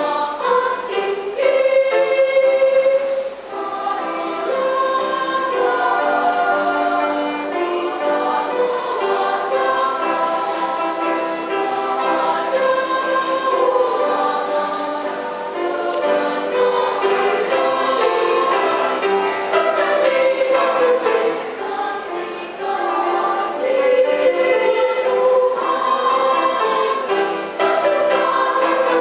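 Children's choir singing in several parts, with held notes and phrase breaks.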